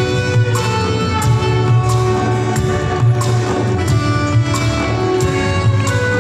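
Live band playing an instrumental passage: held melodic notes over a steady bass, with a light regular beat about twice a second.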